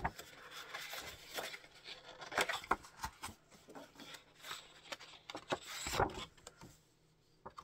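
Paper card and leaflets being handled, with irregular rustling, rubbing and small taps that die down in the last second.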